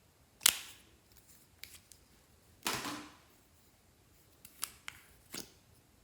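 Glossy slime being pressed and stretched by hand. It gives a sharp sticky pop about half a second in, a longer crackling squelch near the middle, and a few smaller clicks and pops toward the end.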